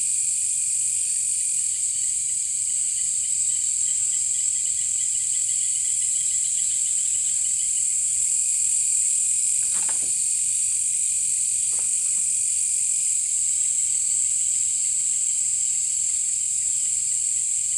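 Chorus of night insects: a loud, steady, high-pitched shrill, with a fainter fast-pulsing trill beneath it for a few seconds. A couple of faint brief knocks come about ten and twelve seconds in.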